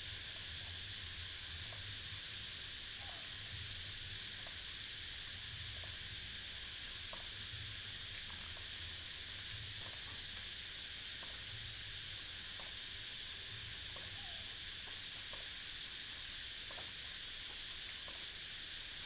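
Night ambience of a steady insect chorus: crickets chirping in a fast even pulse of about three or four chirps a second over a constant high whine. Under it runs a low rumble that swells and fades irregularly.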